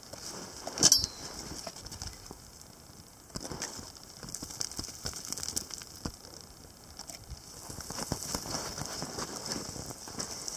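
Loose gravel and small stones crackling and trickling as a gloved hand scrapes into a gravel bank, with scattered clicks of pebbles and one sharper click about a second in.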